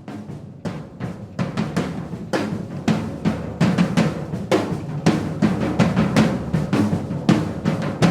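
Music: a drum-kit beat of snare and bass-drum hits with no other instruments, growing louder over the first few seconds.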